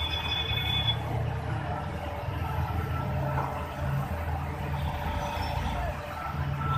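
Diesel engine of a BEML mining dump truck running with a steady low rumble. A high beeping alarm sounds for about the first second, then stops.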